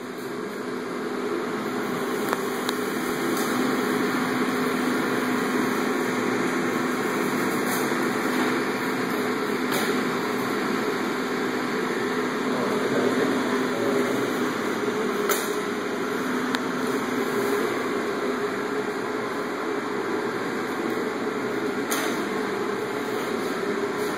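A motor runs steadily, giving an even mechanical hum with a low tone, and a few faint ticks sound over it.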